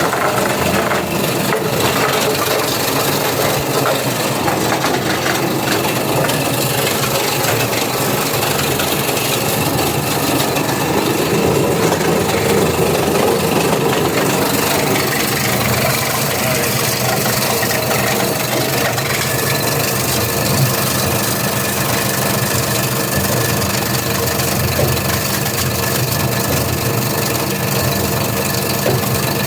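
Plastics granulator running, its three-blade rotor chopping 3D-printed plastic with a dense crackle over the steady motor hum. The chopping is busiest in the first half, then the machine settles to a steadier run.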